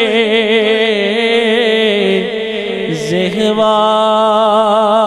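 A man's voice singing a devotional naat in long, drawn-out melismatic notes with a strong, even vibrato, amplified through a microphone. About three seconds in the line dips and breaks briefly, then he settles into one long held note.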